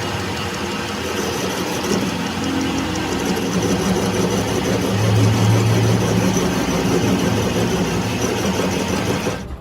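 An engine running steadily with a low, even hum. It grows louder about halfway through and cuts off abruptly near the end.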